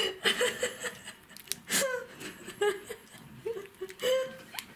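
Soft giggling and laughter in short bursts, with a few quiet voice sounds.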